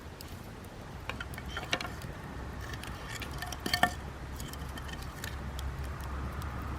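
Camp cookware clinking a few times, the loudest clink about four seconds in, over sparse crackling from a hinoki-wood campfire.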